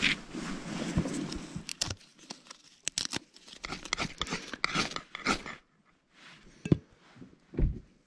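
Tinder being scraped, torn and crumpled by hand while a campfire is laid: a steady scraping for the first two seconds, then crisp crackling and tearing, a single sharp click about two-thirds in and a dull thump near the end.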